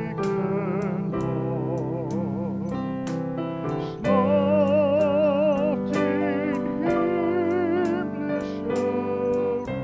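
Church music: piano chords with a held, wavering melody line sounding over them.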